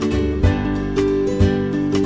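Music with strummed acoustic guitar over held notes, with a strong low beat about once a second.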